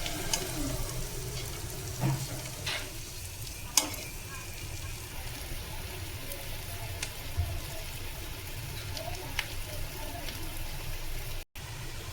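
Food sizzling in a cooking pot while being stirred, with a steady hiss and a few sharp clinks of the spoon against the pot. The sound cuts out for a moment near the end.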